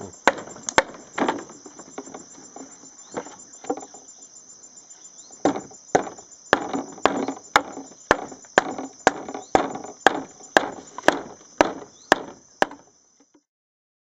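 Bamboo pole pounded down into a hollowed log, hollow wooden knocks about two a second, thinning to a few scattered strokes for several seconds before picking up again; the sound cuts off near the end. A steady high insect buzz runs behind.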